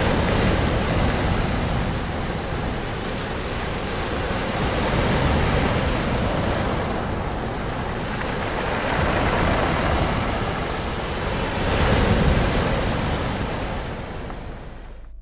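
Ocean surf: waves breaking and washing in as a continuous rush, swelling louder four times, then fading out near the end.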